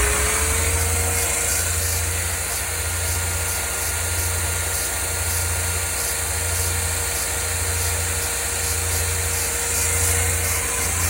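Burr King belt sander running steadily with no work on it: an even motor hum with a steady tone and a low pulse repeating about once a second.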